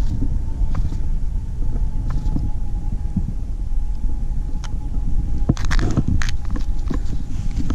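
Steady low rumble with a faint steady whine above it. Several sharp clicks and knocks come about five to six seconds in.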